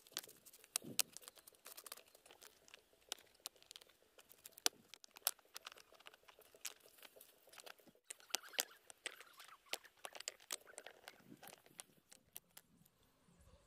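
Stones clicking and knocking against one another as they are set by hand into wet cement, with short gritty scrapes. The clicks come irregularly and many at a time, then die away near the end.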